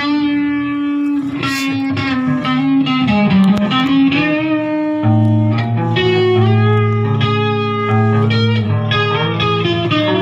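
Electric guitar playing a melodic instrumental passage of held notes, without vocals; a low sustained note comes in about halfway through.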